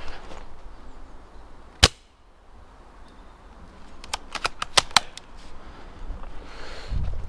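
Airsoft gunfire: one sharp snap about two seconds in, then a quick, irregular string of about seven snaps between four and five seconds in.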